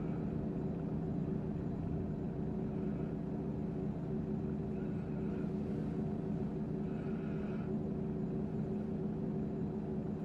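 Steady low hum of a running kitchen appliance, with two faint brief scratchy rasps a little past the middle as ground pepper is put onto raw chicken breasts.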